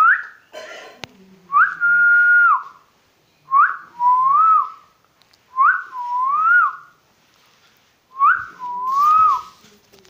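Clear repeated whistles in five short phrases about two seconds apart, each a quick upward sweep followed by a held or rise-and-fall tone, in a session of coaxing a pet ringneck parrot. A brief rustle and click about a second in.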